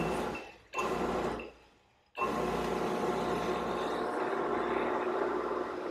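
Electric jet pump starting up once the air has been purged from its line, then running steadily and pressurizing the water line. Two short bursts come first, then a brief gap, before the pump settles into a continuous run about two seconds in.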